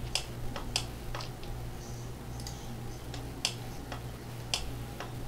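Computer mouse clicking irregularly, about eight sharp clicks, over a steady low hum.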